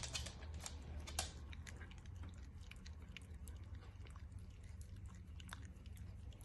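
Small white dog licking and chewing peanut butter off a stick: quick wet smacking and clicking of tongue and teeth, busiest in the first second, then lighter.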